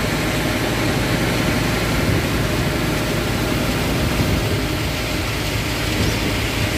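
Diesel truck engine running steadily: a low rumble under a broad, even hiss.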